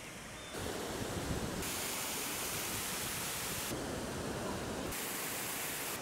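Wind rushing over the microphone outdoors: a steady hiss that grows louder about half a second in and whose brightness jumps up and down abruptly a few times.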